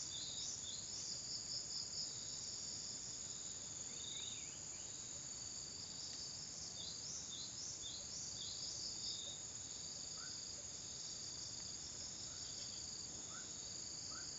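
Steady high-pitched chorus of insects, with short rising chirps scattered through it, a few of them lower-pitched near the end.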